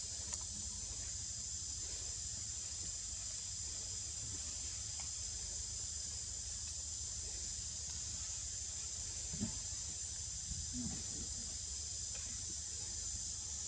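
Steady high-pitched insect chorus over a low background hum, with a couple of soft, brief low sounds about halfway through.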